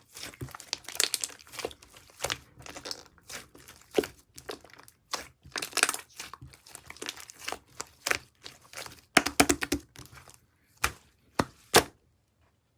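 Translucent slime being squished, pressed and poked by hand, giving sticky crackling and popping clicks in quick, irregular bursts that stop abruptly near the end.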